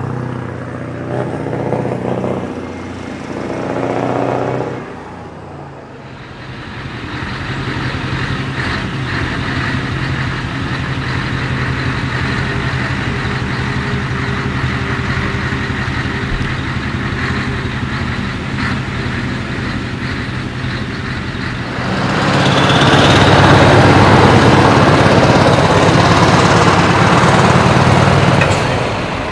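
Heavy truck diesel engines running as trucks drive past one after another, including a Scania tractor unit. A steady engine note with a dip a few seconds in, then much louder over the last several seconds as a truck moves off close by.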